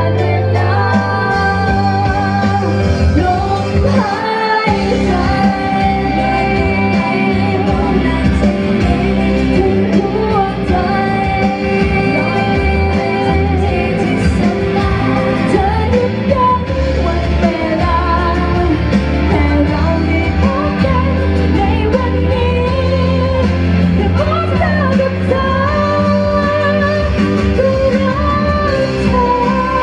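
A woman singing a Thai pop song live into a handheld microphone over amplified backing music.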